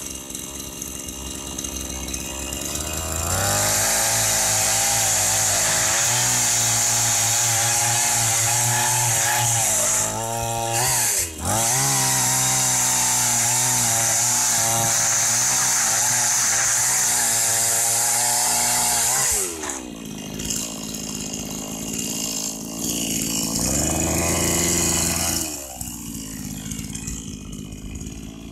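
Two-stroke engine of a Meec string trimmer driving a converted Biltema chainsaw attachment through a log: it idles, is revved to full throttle about three seconds in and held there for some sixteen seconds, its pitch wavering under the load of the cut, with a brief dip about ten seconds in. It then falls back to idle, is revved once more briefly, and idles quietly near the end.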